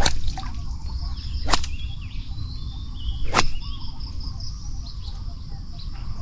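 Water splashing sharply three times, about one and a half to two seconds apart, as a catch on a set bamboo-pole hook line thrashes at the surface. Insects chirp steadily underneath.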